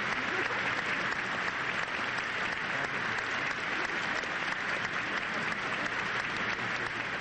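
Opera audience applauding steadily, a dense patter of many hands clapping.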